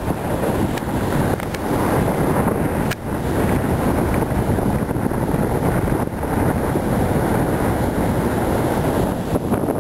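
Wind buffeting the microphone over the roar of heavy surf breaking on a rocky shore: a loud, steady rumbling noise.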